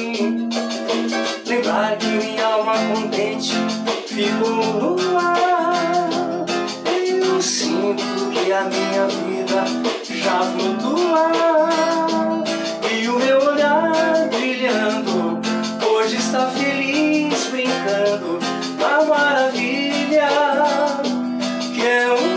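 A man singing in Portuguese to his own nylon-string classical guitar, with chords and plucked notes under a steady sung melody.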